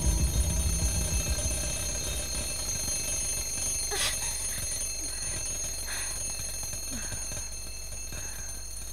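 Alarm clock ringing without pause, its bell tones held steady. A faint knock comes about four seconds in.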